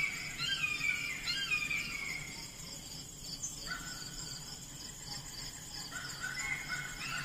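Nature ambience: birds chirping in short falling notes over a steady high insect-like trill, busiest at the start and again near the end.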